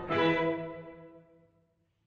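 Violin and cello strike a final chord just after the start, and it rings and fades away over about a second and a half.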